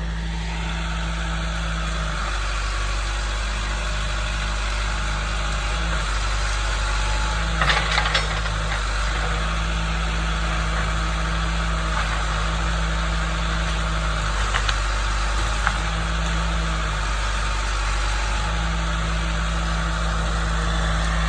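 Diesel engine of heavy land-clearing equipment running steadily, its tone dipping and returning every few seconds, with a short cluster of clanks about eight seconds in.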